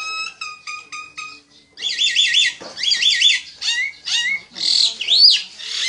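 A bird calling in runs of short, high chirps and whistled notes, with a rising-and-falling whistle near the end.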